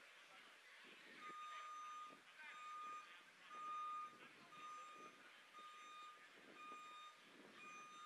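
A vehicle's reversing alarm beeping steadily, about one short beep a second, starting about a second in. Faint voices are heard under it.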